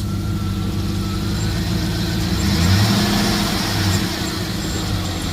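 2007 GMC Yukon's V8 engine running steadily in reverse gear during a check for bad motor mounts.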